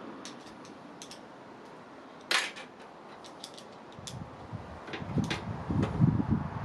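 Hands working on a desktop PC during assembly: a string of small sharp clicks, one louder click about two seconds in, then low knocks and handling bumps that grow louder in the second half.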